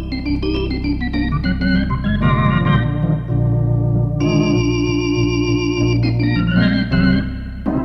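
Organ playing a blues over steady bass notes, with a long held chord around the middle.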